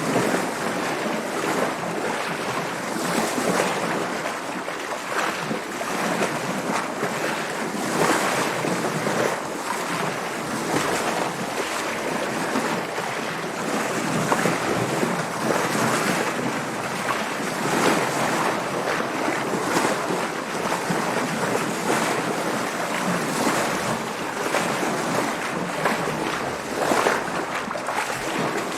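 Water splashing and sloshing against a sailboat's hull, with wind, in a steady wash broken every second or two by brief surges of spray.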